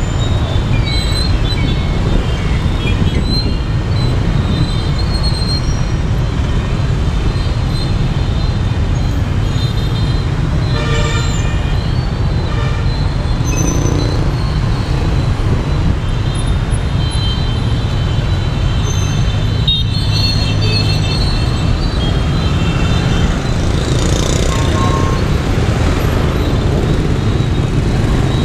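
Heavy motorbike and scooter traffic, with some cars, passing close by: a steady engine and tyre rumble with short horn toots now and then, several in the middle and near the end.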